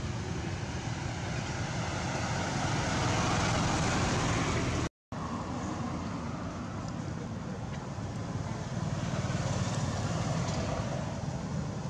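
Steady outdoor background rumble and hiss with no clear animal calls, broken by a split-second dropout to silence about five seconds in.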